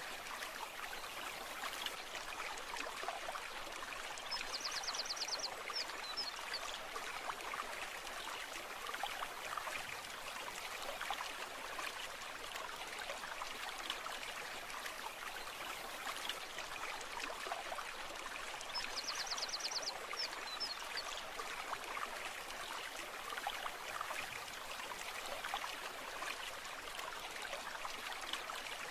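Brook water running and babbling steadily. A brief, rapid high-pitched trill sounds twice, about 5 seconds in and again about 19 seconds in.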